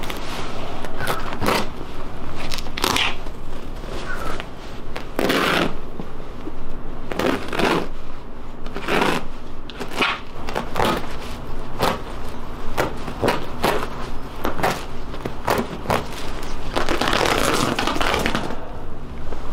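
Carpet being pulled up off the floor: a run of ripping and crackling noises as it tears free of the floor and its foam padding, with some scraping, and a longer tear near the end.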